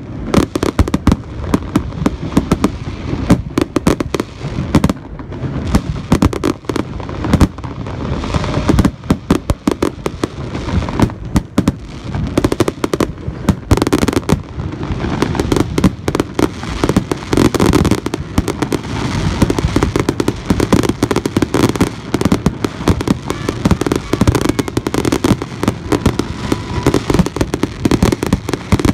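Fireworks finale: a dense, unbroken barrage of aerial shell bursts going off in quick succession, the booms overlapping one another with no let-up.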